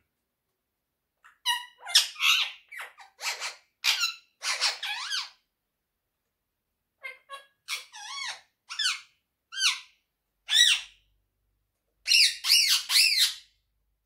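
Indian ringneck parakeet giving short, high calls with rising and falling pitch. They come in three groups, the last a quick run of calls near the end.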